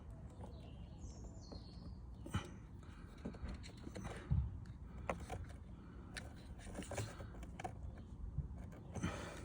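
Scattered small clicks and taps of a plastic puddle-light connector and housing being handled and worked loose in a car door, with a louder low thump about four seconds in. A brief high chirp sounds a little after one second.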